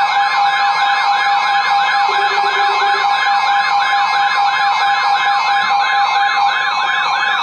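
Electronic siren-type alert tone, a rapid wail sweeping up and down about three times a second over a steady underlying tone, sounding between two emergency weather warnings.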